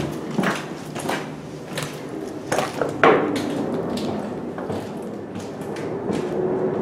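Footsteps going down concrete stairs littered with broken glass and slate, shoes crunching and scraping on the shards and grit, with the loudest crunch about three seconds in.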